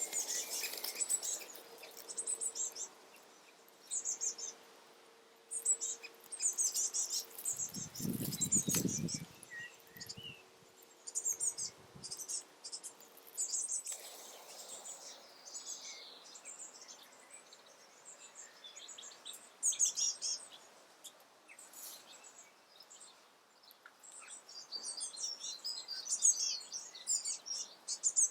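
Fledgling great spotted woodpecker's high, rapid begging calls in short bursts every second or two as the female feeds it. A brief low rumble sounds about eight seconds in.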